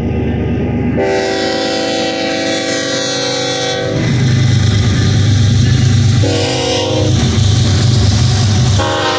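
BNSF GE ES44DC diesel locomotive sounding its multi-note air horn for a grade crossing: a long blast about a second in, a short blast a couple of seconds later, and another long blast starting near the end. Between the blasts the locomotives' diesel engines make a deep rumble that grows loud as they approach.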